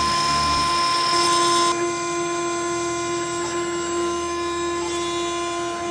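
6090 CNC router spindle running at 22,000 RPM while a fine bit carves a brass coin relief: a steady whine made of several held tones. About two seconds in the sound changes abruptly, losing its high hiss, dropping a little in level, and settling to a lower steady tone.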